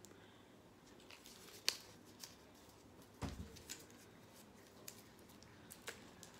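A small folded paper slip being handled and unfolded: sparse soft crinkles and clicks of paper, with a dull thump about three seconds in.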